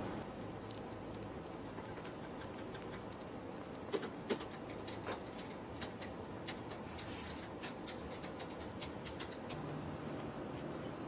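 A small kitten's claws pattering and scratching lightly on a surface as it moves about, in faint irregular ticks, with two louder clicks about four seconds in.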